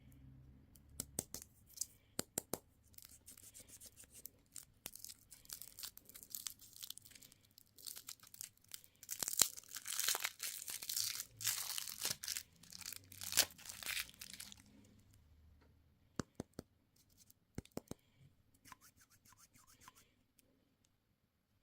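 Candy packaging being torn open and crinkled by hand, with sharp clicks and crackles, the tearing densest from about eight to fifteen seconds in, then a few scattered clicks.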